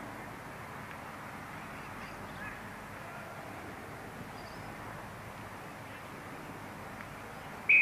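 Steady noise of an outdoor camcorder recording dubbed through several tape and disc copies, with a few faint, distant bird calls. A loud, high whistle starts suddenly at the very end.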